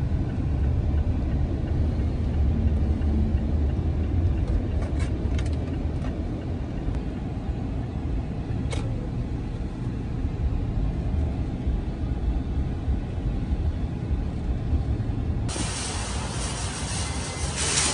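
Low, steady rumble of a car's engine and road noise heard from inside the cabin as it drives, with a few faint clicks. About three-quarters of the way through it changes abruptly to a steady hiss.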